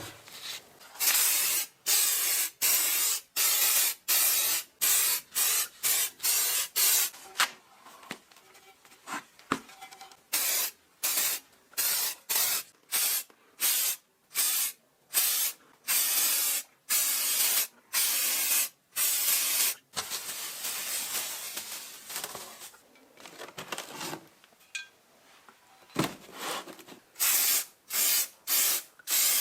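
Pressurised spray hissing in short repeated bursts, about one or two a second, with one longer unbroken spray about two-thirds of the way through.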